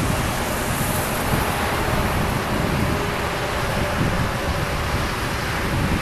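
Steady rushing wind noise, even and unbroken, with a faint steady tone held underneath.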